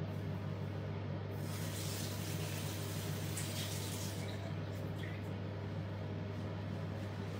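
Bathroom sink tap running as hands are rinsed under it. The water starts a little over a second in and stops about three seconds later, over a steady low hum.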